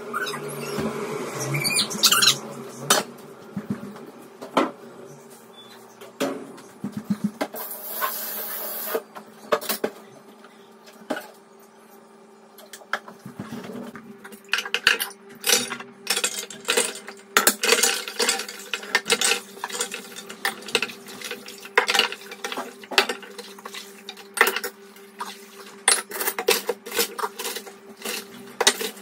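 Dishes being handled and washed by hand at a kitchen sink: ceramic plates and bowls and pots clinking and knocking against one another, in many sharp clinks that come thick and fast through the second half, over a faint steady hum.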